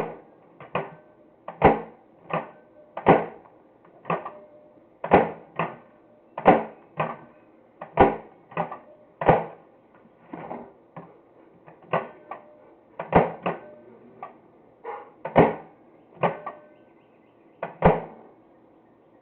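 Microwave oven door being opened and shut again and again: a sharp latch click and knock one or two times a second.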